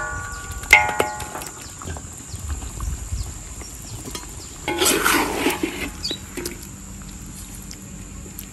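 Steel serving tray clanging twice against the rim of a large steel wok as fried chicken pieces are tipped in, the metal ringing briefly after each knock. About five seconds in comes a short burst of scraping and sizzling as the chicken is turned in the soy sauce.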